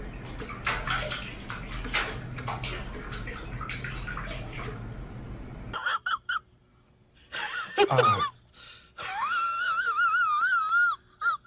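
Water splashing and sloshing in a metal kitchen sink as a cat paws at it, with small clicks and knocks. It cuts off suddenly about halfway through, and a few high, wavering vocal notes follow, the longest held for about two seconds near the end.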